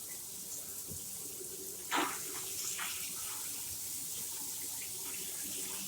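Shower water running steadily from the main overhead rain shower head, a constant spray hiss. A brief knock sounds about two seconds in.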